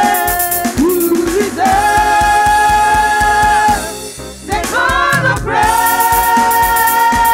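Women's gospel vocal group singing in harmony into microphones, with a steady beat behind them. The voices hold two long notes, with a short break a little past the middle.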